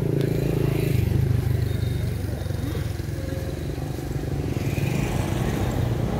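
A motor vehicle engine running steadily, its low drone shifting to a different pitch about a second in.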